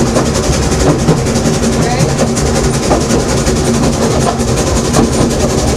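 Steam train running, heard from an open carriage: a steady rumble of wheels on the rails with scattered knocks and clatter.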